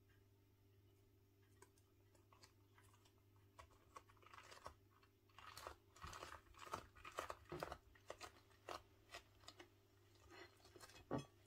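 Faint crackling and crinkling of a soaked rice-paper spring roll with lettuce inside as hands roll and press it on a plate. The sounds are busiest about halfway through, with one sharper click near the end, over a steady low hum.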